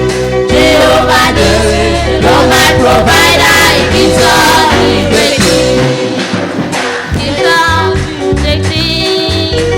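Gospel song: voices singing over an instrumental accompaniment with a steady bass line.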